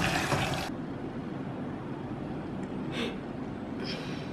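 Thick stew bubbling in a pot while it is stirred with a wooden spoon. The sound cuts off under a second in, leaving a low steady hum with two brief soft noises near the end.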